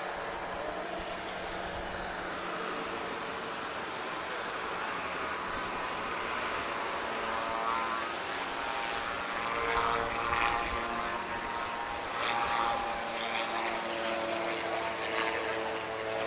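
MTO Sport autogyro's engine and pusher propeller droning in flight. Its pitch wavers and it grows louder through the second half as the gyro swings around.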